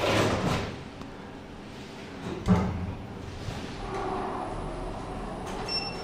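Otis Gen2 lift: the car doors slide shut, meeting with a sharp thud about two and a half seconds in. The car then sets off with a low steady hum, and a short high beep sounds near the end.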